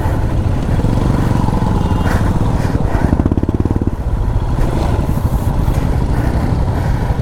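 Royal Enfield Himalayan 411's single-cylinder engine running under way off-road, its firing pulses steady throughout.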